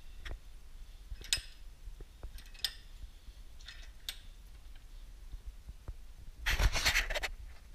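Handling noise from work on a disassembled piston pump: a few light metallic clinks and taps. About six and a half seconds in comes a louder scraping rustle lasting under a second.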